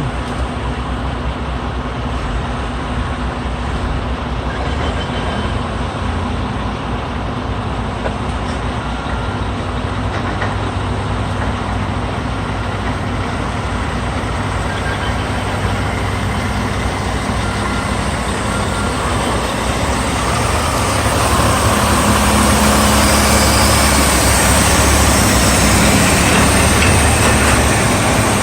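Heavy diesel engine running steadily with a deep rumble, growing louder and rougher about twenty seconds in.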